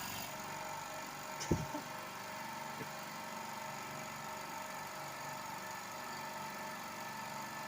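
Oil-free air compressor with three 550-watt heads running steadily, building pressure in its tank before the auto cut-off. A single short knock comes about a second and a half in.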